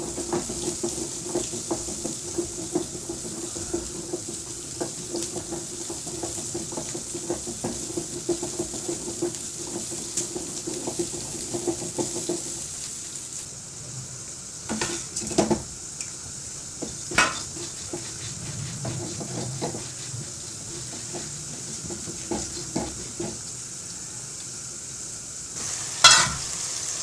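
Shallots, garlic and ginger sizzling in oil in an iron kadai, stirred with a wooden spatula in many small scrapes and taps. From about halfway, whole spices and dried red chillies roast in the pan, with a few louder clanks of metal cookware, the loudest near the end.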